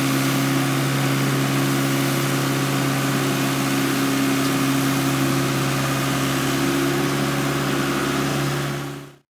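1996 Rosco RB48 rotary broom sweeper running steadily, its engine droning while the angled broom spins against the dirt surface. The sound cuts off suddenly near the end.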